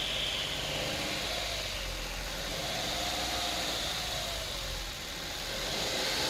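Car engine idling steadily, with a faint tone that drifts gently up and down.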